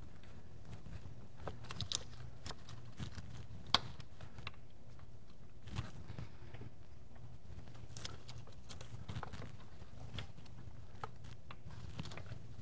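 Scattered light clicks and knocks of hands seating a fuel rail and fuel injectors on a GM LT1 V8, with one sharper click about four seconds in. A steady low hum runs underneath.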